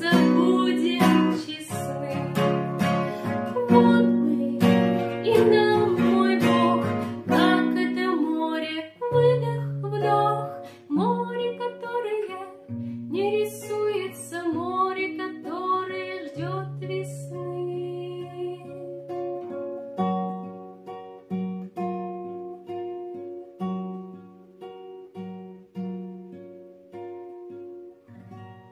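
Acoustic guitar playing the closing bars of a song: strummed chords at first, then slower picked notes and chords that thin out, get quieter and ring out at the end.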